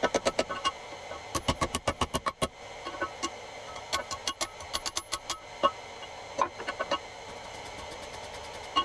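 Hammer blows on an anvil while forging hot iron for blacksmith's bolt tongs. The strikes come in runs of quick blows with short pauses between, and each blow rings.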